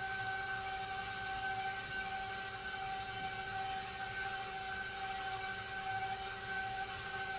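Steady high-pitched whine of a few held tones over a low hiss, unchanging throughout, from a running appliance or fan.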